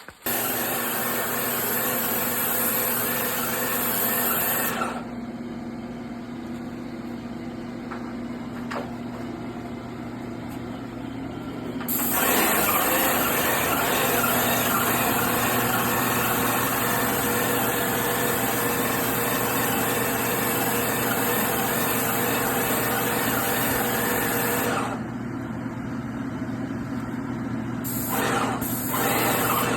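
Graco Magnum X7 airless paint sprayer running: its electric piston pump hums steadily while the gun sprays in long bursts with a loud high hiss. The hiss breaks off twice for several seconds while the pump keeps running.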